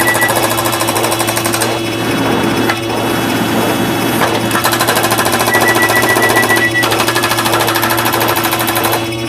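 Dense pile of many overlapping cartoon and alert sound effects played in rapid succession, a fast mechanical-sounding clatter over steady held tones. A rapid high beeping sits on top at the start and again about two-thirds of the way in.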